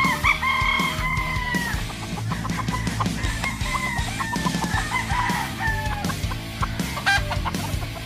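Gamecock roosters crowing: one long crow right at the start, then a fainter drawn-out crow a few seconds in, over background music.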